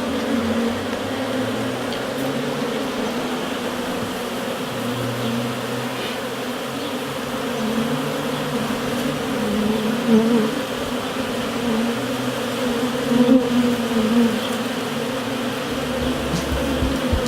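A swarm of honeybees buzzing steadily around a trapout cone, the massed hum of many wings wavering slightly in pitch.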